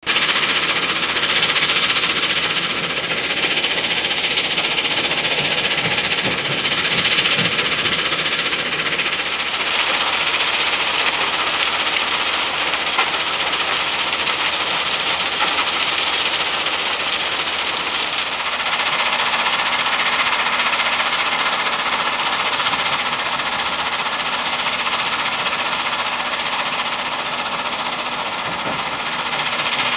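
Gravel-pit machinery running: the dense, steady clatter and rumble of a stone crusher and rock drill. About two-thirds of the way in the sound shifts to a steadier machine drone with a thin, steady whine.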